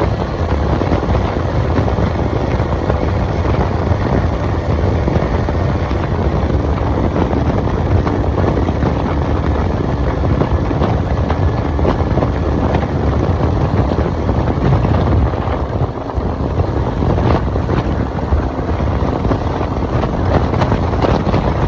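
Bajaj Pulsar NS200's single-cylinder engine running hard at high speed through its stock exhaust, with wind rushing over the microphone. The sound is steady and loud, easing briefly past the middle.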